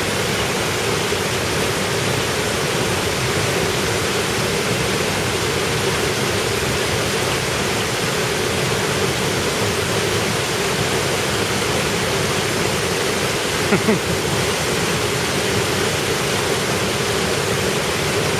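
Waterfall and mountain stream rushing: a steady, unbroken water noise, with a brief short voice about 14 seconds in.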